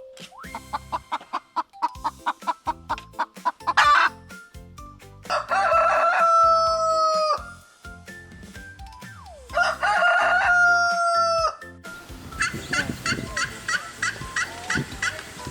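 Chicken clucking in quick short notes, then a rooster crowing twice, each crow about two seconds long. Near the end a turkey starts gobbling in a rapid rattling series.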